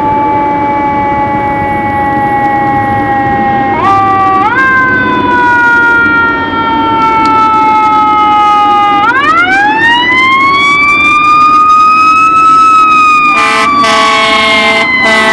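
Fire truck siren winding slowly down, rising in two quick steps about four seconds in, then winding up high about nine seconds in and falling away again. An air horn blasts for about a second and a half near the end.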